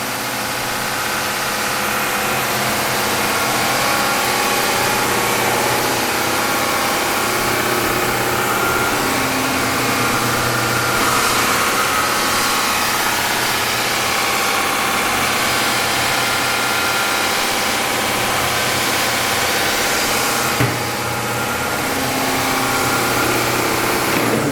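Bridgewood BWS-15 open-end wide belt sander running with no stock in it, its 7.5 horsepower main motor driving the sanding head with the conveyor on: a steady machine hum made of many steady tones. A single click sounds near the end.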